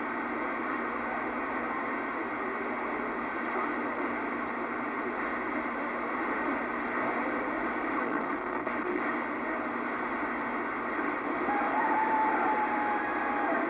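CB radio receiver putting out steady static hiss on an open channel, a thin, band-limited rushing noise with no one transmitting. A faint whistling tone comes through near the end.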